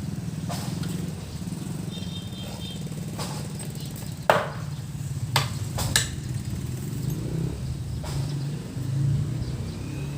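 A steady low mechanical hum, like a small engine running, with several sharp knocks scattered through it; the loudest knock comes about four seconds in, and a quick cluster follows a second or two later.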